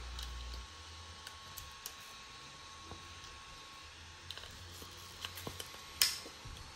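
Scattered light clicks and taps of a bent steel bicycle-spoke support bar being handled against the metal frame of an RC motorcycle chassis, with one sharper click about six seconds in.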